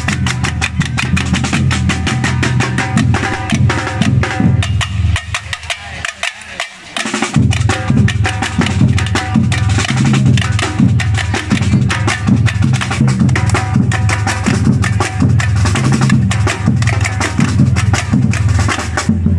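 Percussion ensemble playing a fast batucada-style beat: deep bass drums under rapid snare and wood-block-like strikes. The bass drums drop out for about two seconds a little past the middle, then come back in.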